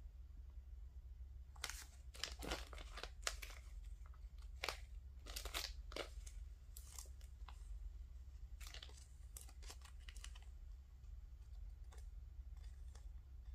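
Paper die-cut flower stickers rustling and crinkling as fingers rummage through them in a clear plastic case, in short scattered bursts that come mostly in the middle of the stretch.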